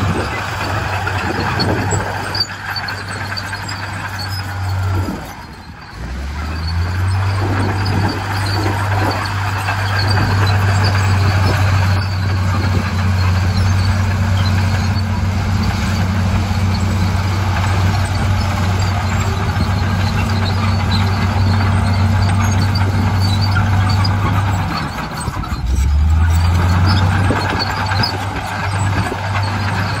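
Komatsu crawler bulldozer's diesel engine running under load while pushing soil and rock, a steady low drone. The engine note drops off briefly about five seconds in and again near twenty-five seconds, then climbs back up.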